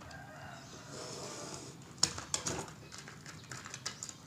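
Snap-off utility knife blade scraping along a clear plastic blister pack. About two seconds in there is a sharp snap, then crackling clicks as the stiff plastic is pried apart by hand.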